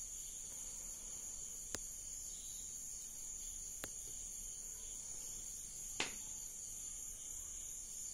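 Three faint, sharp clicks of plastic beads knocking together as they are strung onto clear nylon line, over a steady high-pitched hiss.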